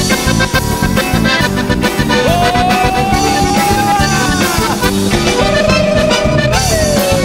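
Live band playing an instrumental passage of a Paraguayan polka, with accordion, Paraguayan harp, guitars and percussion over a steady beat. A lead line holds two long notes that bend and waver in pitch.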